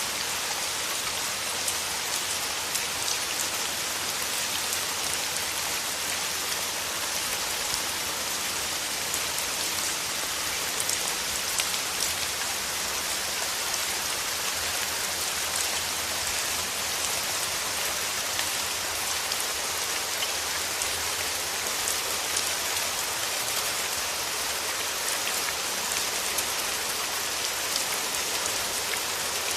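Steady rain falling, a dense even patter of many small drops hitting surfaces.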